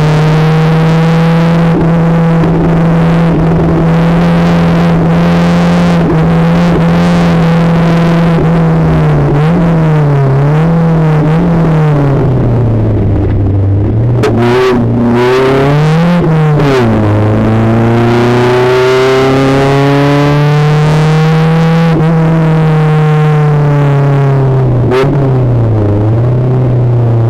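Renault Twingo race car's four-cylinder engine heard from inside the cabin under hard driving. The revs are held high, waver several times, drop away about halfway through, then climb steadily again before another dip near the end.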